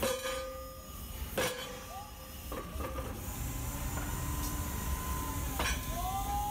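Hydraulic forging hammer striking red-hot steel and its tooling: several sharp metallic blows, the loudest at the start, about a second and a half in, and near the end, each leaving a short ringing tone. Two brief rising metallic squeals come between them, over a steady low rumble of shop machinery.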